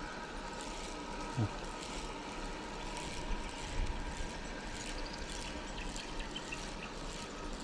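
River water trickling and flowing, a steady wash without any sharp events.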